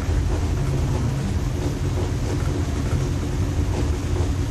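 Steady low motor hum with an even rush of moving air, the sound of a room air cooler's fan running.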